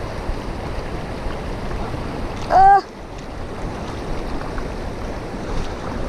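Shallow mountain stream rushing over rocks, a steady wash of water. About two and a half seconds in comes one short voiced exclamation.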